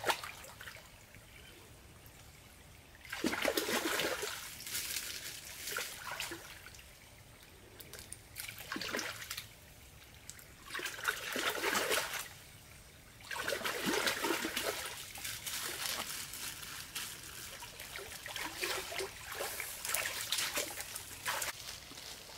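Hands splashing and scooping in shallow stream water, groping along the bed, in bursts of one to several seconds with quieter pauses between.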